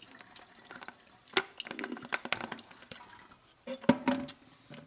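Water and soaked paper pulp pouring from a bucket into a plastic strainer over a stainless steel sink, splashing and dripping. A few sharp knocks about four seconds in as the bucket is set down in the sink.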